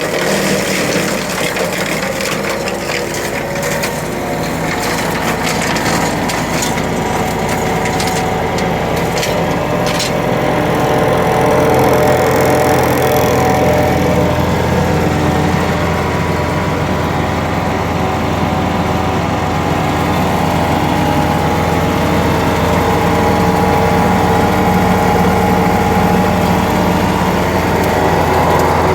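Echo Bearcat wood chipper running and chipping wood, with rapid cracking and splintering over its steady engine for about the first ten seconds. After that the cracking stops and the engine runs on steadily, a little louder and deeper.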